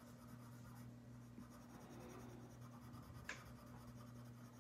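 Faint scratching of a coloured pencil shading on paper, over a steady low hum, with one short tick about three seconds in.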